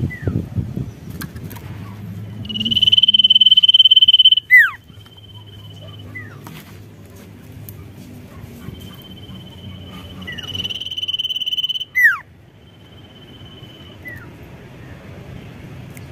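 Common iora (sirtu) singing: long, steady, high whistles, each ending in a quick falling note. The two loudest come a few seconds in and about two-thirds of the way through, with fainter ones between.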